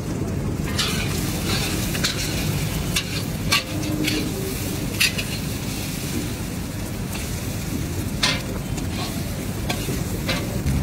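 Eggs sizzling in hot oil in a large wok while a steel spatula stirs them, scraping and knocking against the pan about ten times at irregular intervals, scrambling the eggs for egg fried rice.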